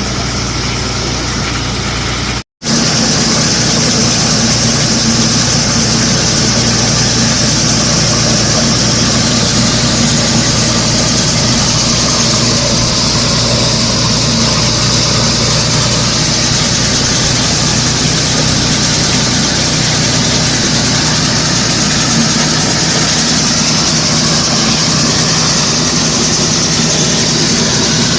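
An engine running steadily at a constant speed, with a loud hiss over its drone. The sound cuts out for a split second about two and a half seconds in, then carries on unchanged.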